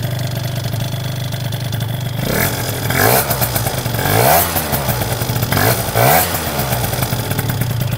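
Two-stroke Piaggio Zip scooter engine with a Malossi Sport cylinder and a de-restricted Yasuni C10 expansion-chamber exhaust, idling and then revved in several short throttle blips from about two seconds in, each rising and falling in pitch. It has a deep sound.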